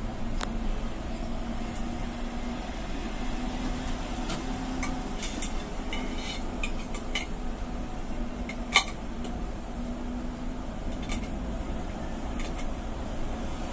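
Cabin noise inside an electric sleeper bus on the move: a steady road rumble and a low hum, with light clicks and rattles from the fittings and one sharp knock about nine seconds in.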